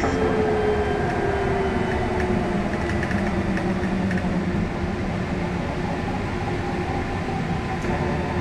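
Inside a trolleybus under way: a steady rumble of tyres and road with the electric traction motor's whine, its pitch falling slowly over the first few seconds.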